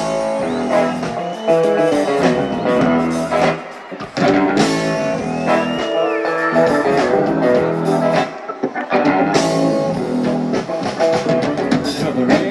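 Live rock band playing, electric guitar over a drum kit.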